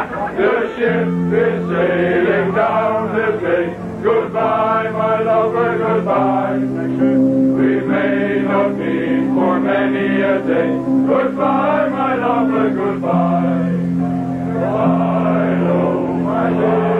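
Ship's choir singing in harmony, men's voices over long held low notes.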